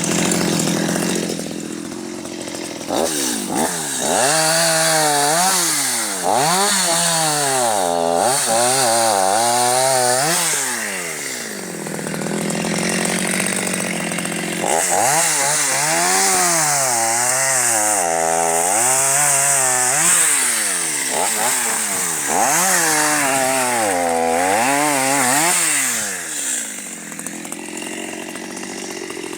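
Stihl MS250 two-stroke chainsaw cutting firewood, its engine pitch repeatedly dipping and rising as the chain bites into the wood. There are two long stretches of cutting with a quieter lull between them.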